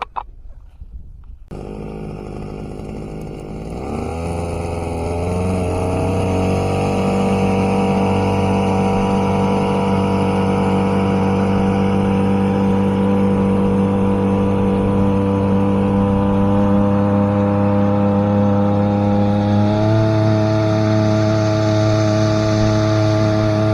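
Boat outboard motor starting up and running, rising in speed over a few seconds to a steady cruising note, then picking up slightly near the end.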